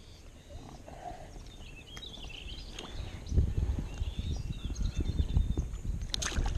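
Birds chirping faintly over a low, fluctuating rumble that starts about three seconds in, with a short burst of sharp crackling noise just after six seconds.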